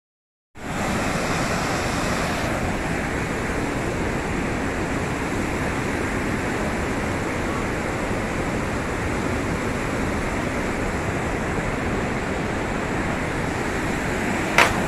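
Rushing water of a waterfall and its stream, a steady loud rush that cuts in suddenly about half a second in. A couple of sharp knocks near the end.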